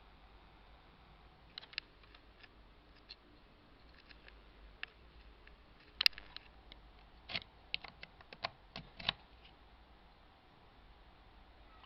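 Faint handling clicks and taps as a USB flash drive is handled and pushed toward a laptop's USB port. There are a few scattered clicks, then a cluster in the second half, the sharpest about six seconds in.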